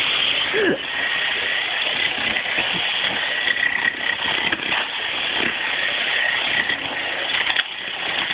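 Pneumatic jackhammer hammering continuously as it breaks up a concrete slab, with a faint steady high tone running under the noise.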